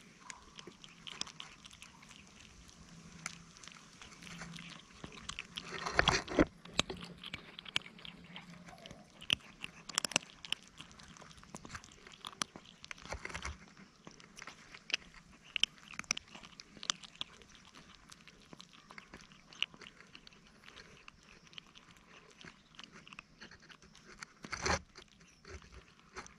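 Kittens crunching dry cat food close to the microphone: a steady, irregular crackle of small bites and chewing. Two louder bumps stand out, one about six seconds in and one near the end.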